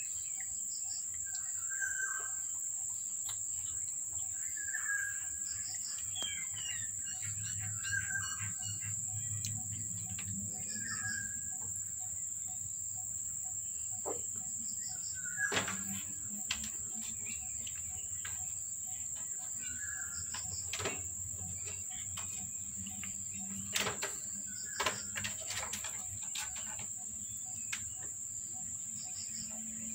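Steady high-pitched insect drone, with a bird giving a short chirp every few seconds and a few faint clicks.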